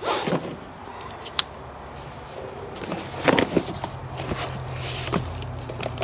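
Small cardboard box being slit open with a pocket knife and its flaps pulled open: scattered scrapes, rustles and knocks, with a sharp click about a second and a half in.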